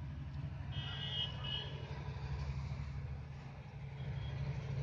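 Outdoor background: a steady low rumble, with a short burst of high chirping about a second in.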